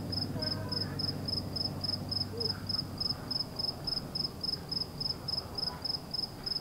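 A cricket chirping in an even rhythm, about four short high-pitched chirps a second. A faint low hum underneath fades out about three seconds in.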